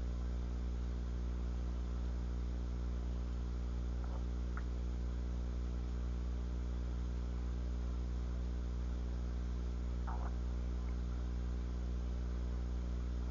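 A person's stomach gurgling, heard as two faint short squeaks about four and ten seconds in, over a steady low electrical hum.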